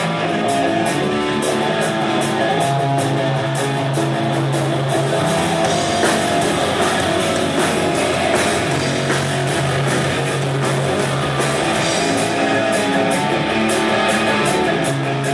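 Live rock band playing: electric guitars, bass guitar and drums with steady cymbal strokes.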